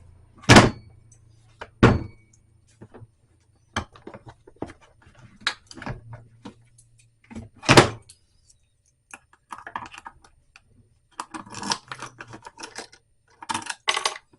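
Shad SH37 plastic motorcycle top box being worked by hand: its lid and newly fitted key lock give a series of sharp clicks and thunks, the loudest about eight seconds in, with bursts of small rattling clicks as the key and latch are worked near the end. This is the new lock being tested, opening and latching.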